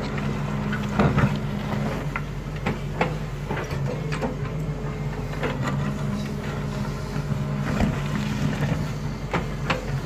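Diesel engine of a wheeled excavator running steadily under load while it digs soil, with scattered sharp knocks and clanks from the working bucket and arm.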